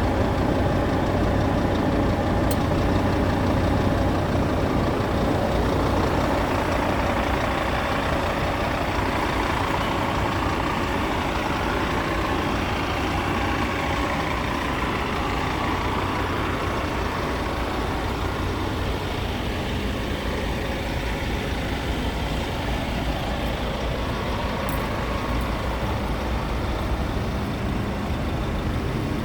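Scania P truck's diesel engine idling steadily, with a faint click or two.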